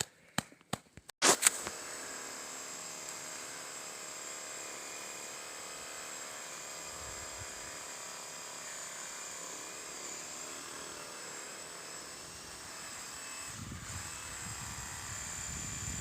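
A power saw's motor running steadily with a high whine, starting after a few sharp clicks about a second in, while dead standing trees are being cut.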